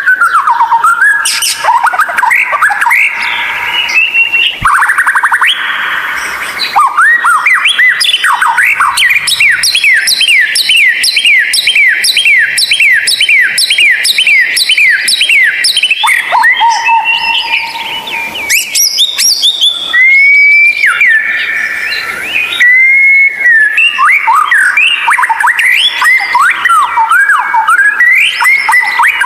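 White-rumped shama (murai batu) singing loudly and continuously: varied whistled phrases, including a long run of rapidly repeated sweeping notes in the middle and clear held whistles later on.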